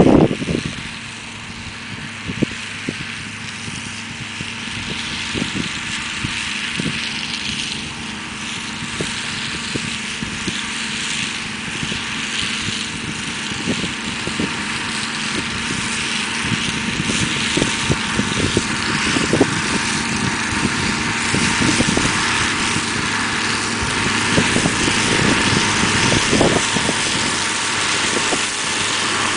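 John Deere 6125R tractor's diesel engine running steadily under load while the John Deere 115 shredder behind it chops buckwheat stalks, with scattered short clicks; it grows steadily louder as the tractor approaches. A brief loud thump sounds right at the start.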